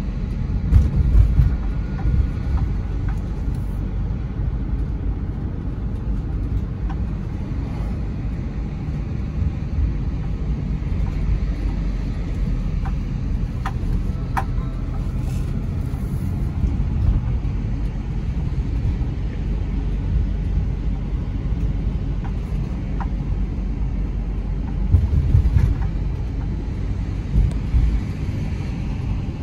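Road noise heard inside a moving car's cabin: a steady low rumble of tyres and engine, with louder bumps about a second in and again near the end, and a few faint clicks in the middle.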